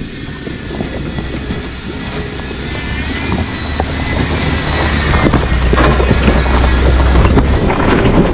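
Jeep Wrangler JKU Rubicon driving onto a rough, washed-out rocky trail: a low engine and drivetrain rumble growing steadily louder, with many short knocks and crunches from the tyres going over stones.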